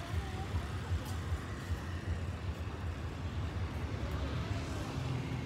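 Steady low rumble of a motor vehicle running, with faint voices in the background.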